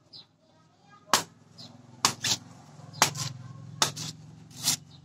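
Heavy cleaver chopping into the tough fibrous husk of a Malaysian coconut, about six sharp, unevenly spaced chops.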